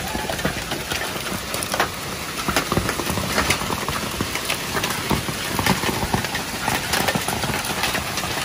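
Heavy hail with rain: hailstones pelting down in a dense, continuous clatter of sharp ticks and knocks over a steady rush of rain.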